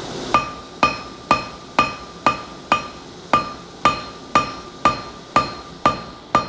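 Hand hammer striking hot 304 stainless steel on an anvil, in a steady run of about two ringing blows a second.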